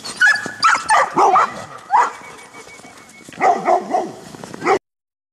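Dogs barking and yipping in short, loud bursts, several in quick succession. The sound cuts off suddenly shortly before the end.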